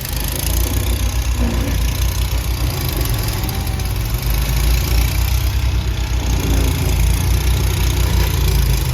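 Outdoor air-conditioning condenser unit running: a steady low hum from the compressor with whooshing fan noise over it.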